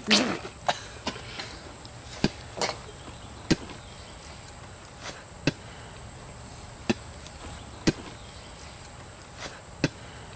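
A string of sharp, separate clicks and snaps, about a dozen spread unevenly over ten seconds, over a faint steady high-pitched whine.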